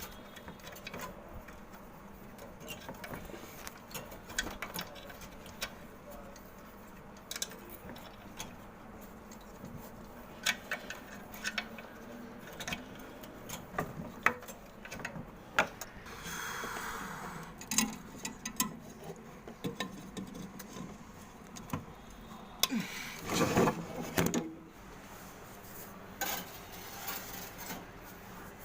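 Hand tools working on a window AC fan motor's metal fittings: scattered clicks, taps and scraping as nuts are fitted and tightened, with a denser run of knocks near the end.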